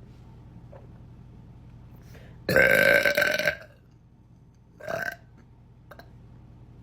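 A woman burping: one loud, deep burp of about a second, then a shorter, fainter burp about a second and a half later.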